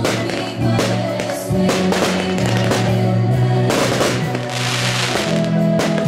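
Music with sustained notes, mixed with several sharp bangs of aerial firework shells bursting.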